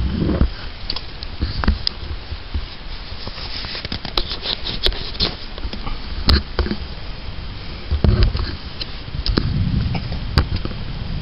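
Rain falling during a thunderstorm, with scattered sharp taps of drops landing close by and low rumbles about a second in and again around eight to ten seconds in.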